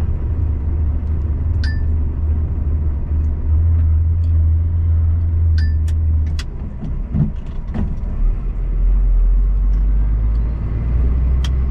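Truck engine droning low, heard from inside the cab while driving; about six seconds in the engine note drops as the revs fall. A few short clicks and bumps sound over it.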